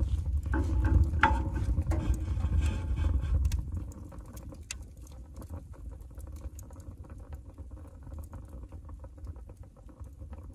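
Small wood fire crackling and popping in a wood stove's firebox as it gets started. A low rumble sits under it and drops away about three and a half seconds in.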